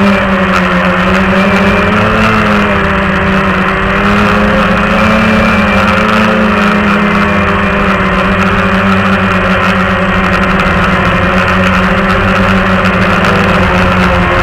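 Walkera QR X350 quadcopter's motors and propellers running loudly up close, a steady buzzing drone whose pitch wavers a little in the first few seconds as the craft climbs.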